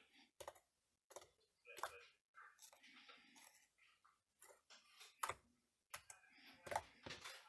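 Faint, irregular sticky clicks and soft squishes of homemade glue slime, mixed with water gel, being stretched and squeezed by hand.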